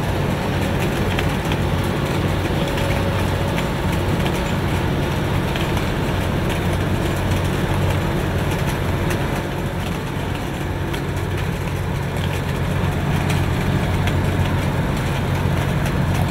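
Heavy road-construction machinery running steadily, its diesel engine giving a deep, even drone.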